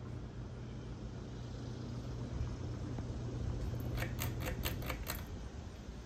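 Crest 2000 series ceiling fan running on high: a steady motor hum with the even rush of air from the blades and some bearing noise. About four seconds in, a quick run of about six sharp clicks.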